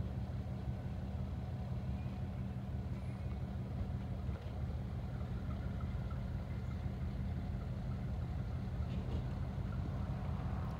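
An engine idling: a steady low rumble that holds the same pitch and level throughout.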